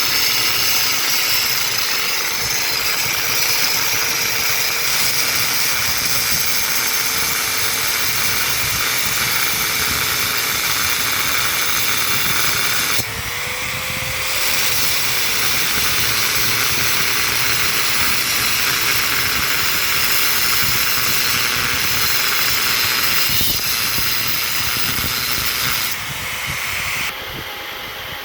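A motor-driven workshop tool or machine running steadily with a loud hissing, grinding noise. It dips briefly about 13 seconds in and drops again near the end.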